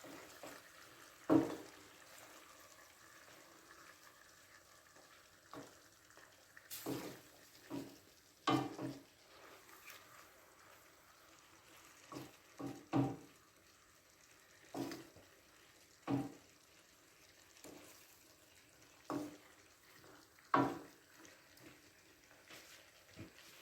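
Chicken and vegetables frying in a pan with a faint steady sizzle, broken by irregular knocks and scrapes of a utensil stirring against the pan.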